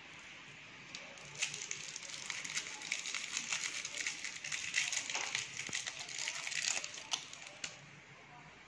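Plastic wrapper of a mint candy crinkling as it is twisted open by hand: a dense run of crackles that starts about a second in and stops shortly before the end.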